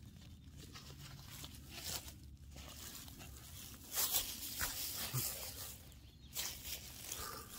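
Rustling and scuffing of a folding closed-cell foam sit pad being unfolded, spread on dry pine needles and folded up again close by, in a run of short noisy bursts, the loudest about four seconds in and again past six seconds.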